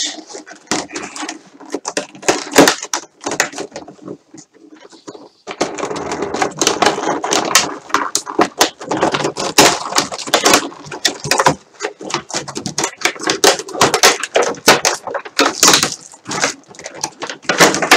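Clear plastic packaging crinkling and crackling as it is handled and pulled open, a dense run of irregular crackles with a brief lull about four seconds in.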